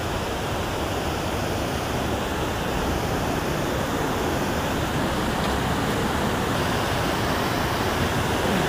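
Steady rush of a low creek waterfall pouring over a rock ledge into the pool below.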